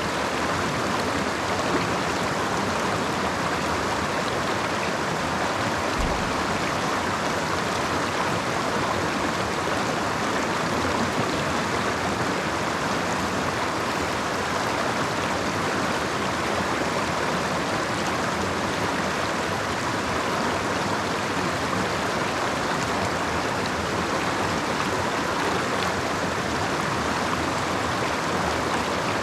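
Creek water flowing and splashing over rocks, a steady rushing that doesn't let up.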